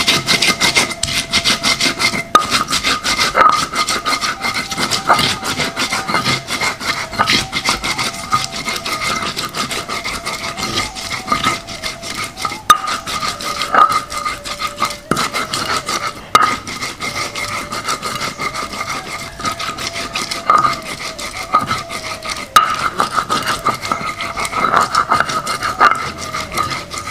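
Spice paste of chilies, shallots, garlic, turmeric and ginger being ground on a stone grinder: a continuous run of quick rubbing, grinding strokes of stone on stone.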